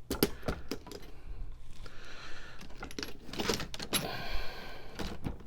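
Metal sockets and tools clinking and rattling as they are handled in a toolbox drawer: scattered sharp clicks with a couple of short rattles.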